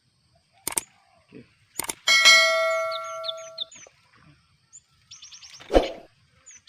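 A sharp metallic clang about two seconds in that rings on with a clear tone for about a second and a half, after a couple of short clicks. Short high bird chirps follow, and there is another knock near the end.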